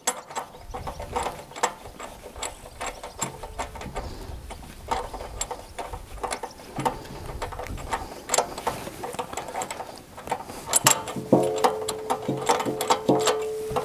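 A spark plug wrench unscrewing the spark plug from a petrol generator's four-stroke engine: irregular metallic clicks and scrapes as the wrench turns.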